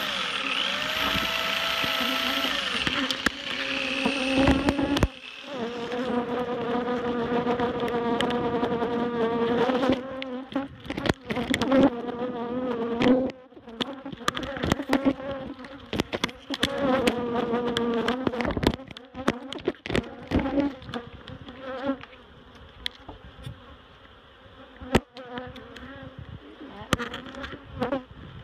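Angry, disturbed honeybees buzzing right at the phone's microphone: a droning hum that swells and fades, broken by many sharp thuds as bees fly into the phone.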